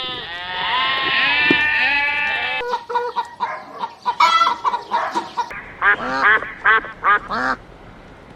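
Farm animal calls in three quickly cut clips. First comes a long wavering call, then shorter calls over a steady tone, then a quick series of about six short calls.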